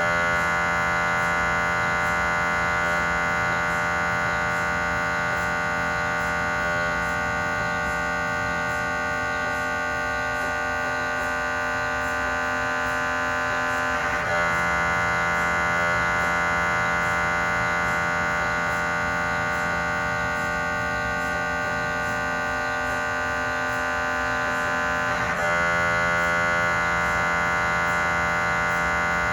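GE 3T MRI scanner's gradient coils running a cardiac pulse sequence: a loud, steady, high-pitched buzzing tone. The pattern shifts briefly about 14 seconds in, and again with a short stutter about 25 seconds in.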